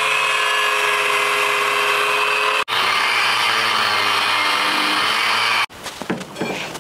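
Cutoff wheel spinning at a steady high whine as it cuts through the steel overload leaf spring under a Chevy C30 dually. It cuts off suddenly about two-thirds through, followed by quieter handling sounds.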